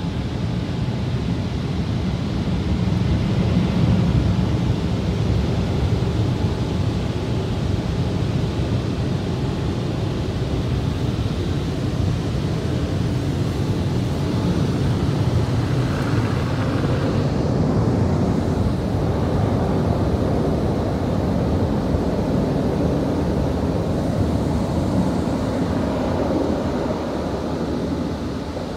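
Automatic car wash machinery heard from inside the car: a loud, steady rush of water spray and spinning brushes working over the body and windows.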